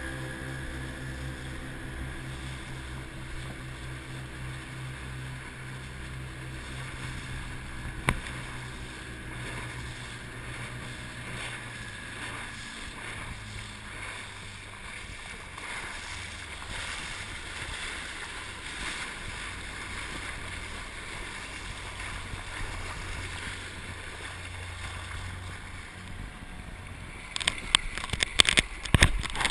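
Dive boat's engine running steadily with water and wind rushing past; its note drops about halfway through. Near the end comes loud splashing and sloshing as the camera is dipped into the sea.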